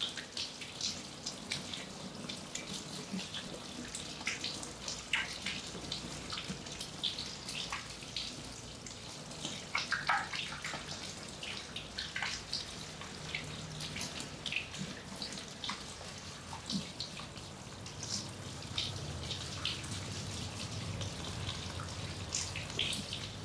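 Water spraying from a handheld shower head onto a man's head and hair, splashing and dripping into a shampoo basin in a steady hiss with many irregular splashes.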